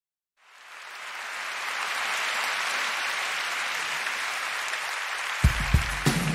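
Concert audience applauding, fading in and holding steady. Near the end, the drum kit comes in with strong low hits as the song starts, over the applause.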